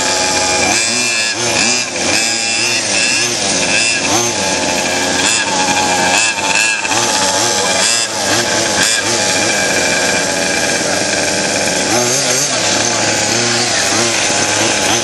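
Small two-stroke petrol engines of large-scale RC cars running together, revving up and down over and over as the cars are driven.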